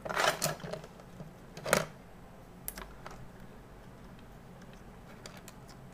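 A few light clicks and taps from hands working at the bench: a cluster at the start, a sharper click about two seconds in, then small ticks near the end, with little else heard.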